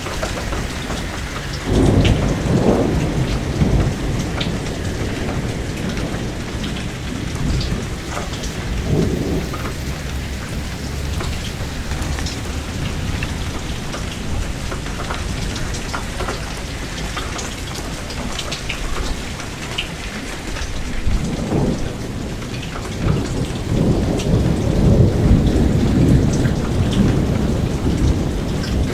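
Steady rain with individual drops ticking on a nearby surface, and thunder: a roll about two seconds in, a smaller one around nine seconds, and a longer roll building over the last several seconds.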